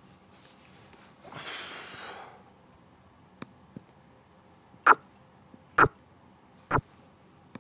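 A short sniff near the microphone, then sharp clicks roughly a second apart, two faint and then three loud, as moves are played through on a computer chess board.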